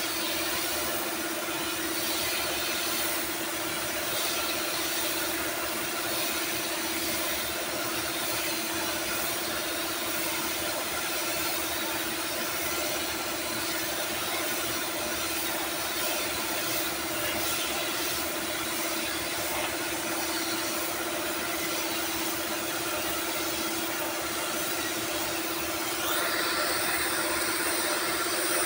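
Compressed-air paint spray gun hissing steadily as it sprays paint, over the constant hum of the air compressor feeding it. The hiss gets louder near the end.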